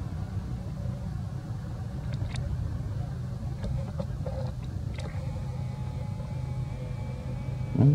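An engine running steadily at a low, even hum, with a few faint clicks.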